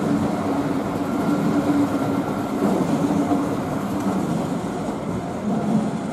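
ICE high-speed train pulling slowly into a station platform. Its power car gives a steady hum over the rolling wheel noise, with a faint higher whine between about one and two and a half seconds in.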